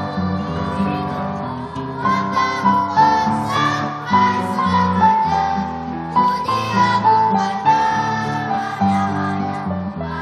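Children's choir singing a song together, with instrumental accompaniment.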